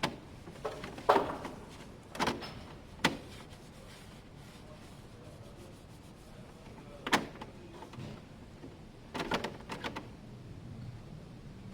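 Short, sharp scuffs and knocks at irregular intervals, with a quick cluster near the end: hands cleaning and handling a scooter's plastic bodywork.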